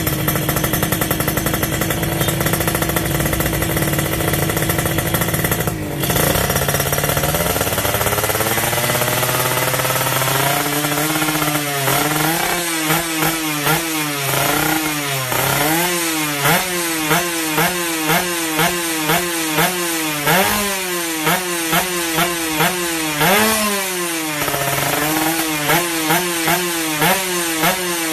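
Two-stroke underbone motorcycle engine with an ABRT20 racing exhaust, revved on the stand. It holds steady revs for about six seconds, the revs climb slowly, and from about twelve seconds in it takes quick repeated throttle blips, about one or two a second, the pitch shooting up and dropping back each time.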